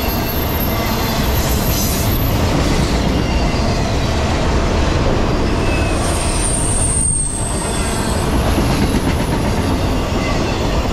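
Intermodal freight cars loaded with trailers and containers rolling past close by: a steady loud rumble of steel wheels on rail. Thin high-pitched wheel squeals come through near the start and again from about six to eight seconds in.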